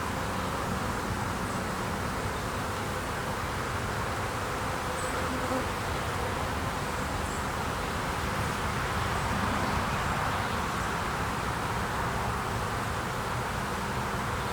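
Honey bee swarm in flight, many bees buzzing together in a steady hum that does not let up.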